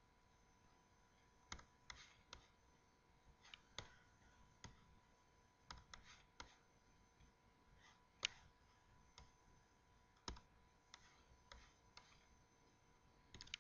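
Faint, irregular clicking of a computer mouse, about twenty clicks spaced unevenly, one louder at about eight seconds, over a faint steady tone.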